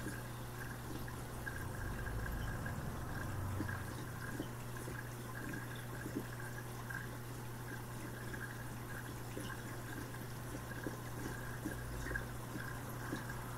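Reef aquarium water circulating: steady trickling and dripping with small scattered splashes, over a steady low hum.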